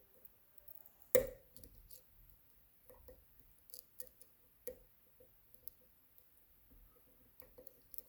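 Light metallic clicks and taps of a lock pick and tension wrench working the pins of a Robur safety deposit box lock, with one sharper click about a second in and another a little before five seconds.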